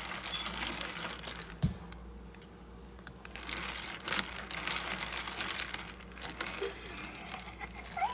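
Dry, crunchy cereal being crumbled and stirred by hand in a glass bowl: a crackling, rustling sound with light clicks, and a dull knock about a second and a half in.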